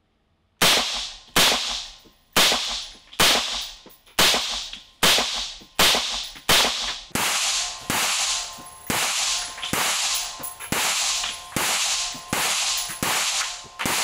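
Kalashnikov SR-1 semi-automatic .223 rifle firing a steady string of about nineteen shots. The shots come about one a second at first and quicken to nearly two a second, each crack ringing out with a reverberant tail in the enclosed range.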